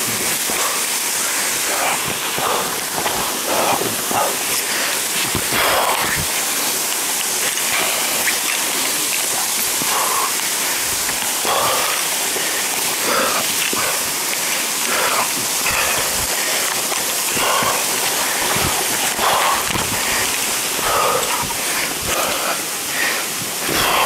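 Waterfall water rushing and spattering close to the microphone, with frequent short knocks and taps running through it.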